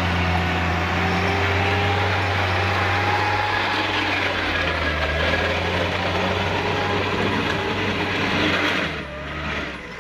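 Mitsubishi pickup's diesel engine held at high revs under heavy load as it climbs a muddy track, pitch creeping up over the first few seconds, then easing off about nine seconds in.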